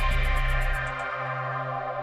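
Electronic intro music: a held synthesizer chord that slowly fades after a run of hits, its bright top dying away in the first second.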